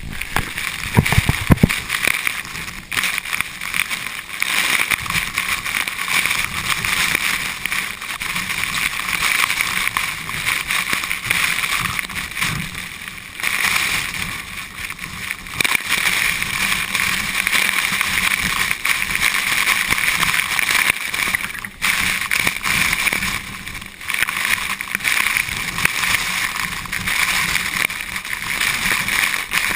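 Steady rushing of a tall waterfall's falling water, with an uneven low rumble underneath and a few brief dips in level.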